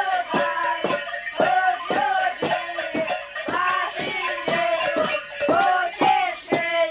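Children's voices singing a carol together, with a steady beat of sharp knocks about twice a second, typical of the Betlehemci shepherds' staffs struck on the floor.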